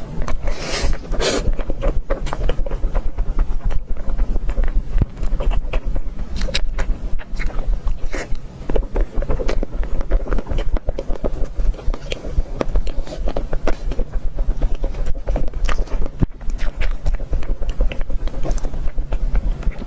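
Close-miked eating: dense, irregular crunching and smacking from chewing, over a steady low rumble.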